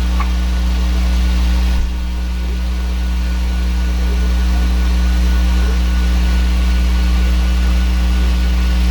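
A 3D printer running under a loud, steady low hum, with a slight dip in level about two seconds in.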